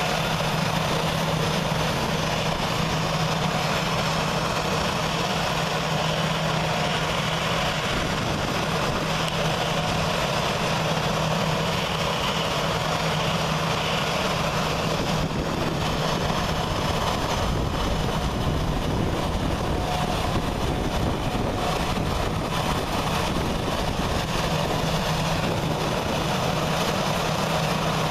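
Airbus A320 jet engines running at idle as the airliner taxis slowly: a steady, unbroken roar with a constant low hum.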